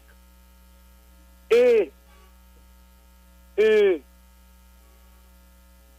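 Steady low electrical mains hum on the interview audio line, broken twice by a brief voiced hesitation sound ("euh") from the male speaker, about a second and a half in and again near the middle.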